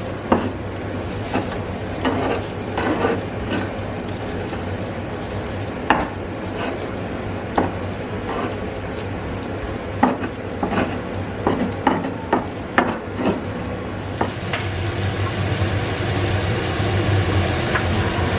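A utensil stirring and crushing a sautéing spice paste of shallots, garlic and candlenuts in a pan, with irregular knocks and scrapes against the pan over a steady low hum. About 14 s in, a steady hiss comes in.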